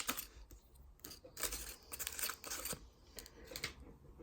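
Baseball cards from a freshly opened pack being handled and slid against one another: a string of short, crisp card-stock rustles and flicks.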